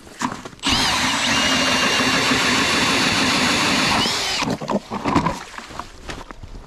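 Power ice auger starting up abruptly, drilling steadily through the ice for about three and a half seconds, then winding down. A few knocks follow.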